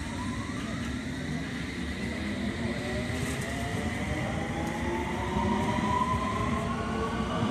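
London Underground District line train pulling out of the platform, its traction motors giving a whine of several tones that climb steadily in pitch as it accelerates, over a low rumble that grows louder.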